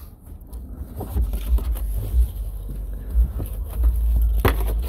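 Low buffeting rumble on the microphone with light scraping and clicks as a car's carpeted trunk floor cover is handled, and one sharp knock about four and a half seconds in.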